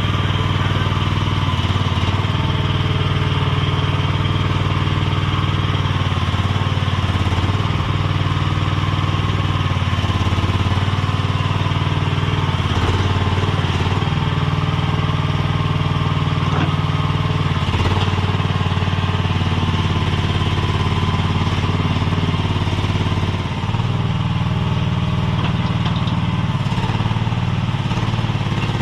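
Chinese mini skid steer's engine running steadily as it works, with small shifts in pitch as the load changes and a brief dip about 23 seconds in.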